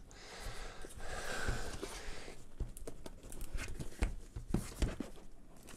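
Cardboard product box being handled and turned over: faint rustling and scraping with scattered light knocks and taps, more of them in the second half, as the box is worked open.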